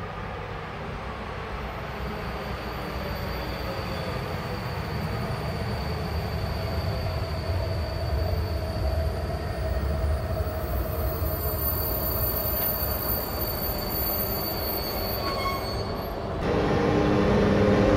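A train running through the station, its rumble slowly growing louder, with a thin high squeal from the wheels on the rails. Near the end it gets suddenly louder.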